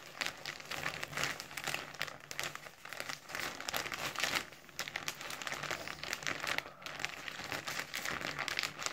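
Plastic courier mailer bag crinkling and rustling as it is pulled open by hand, an irregular run of crackles.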